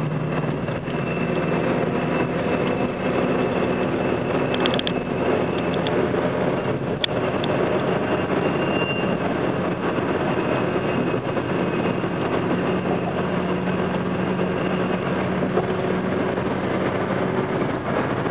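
Steady engine and road noise inside a car's cabin as it drives up an on-ramp onto the highway, with one faint click about seven seconds in.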